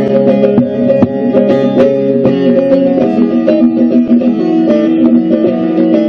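Solo bağlama (saz, Turkish long-necked lute) played as an instrumental passage: quick plucked notes over ringing strings, moving into a new phrase about halfway through.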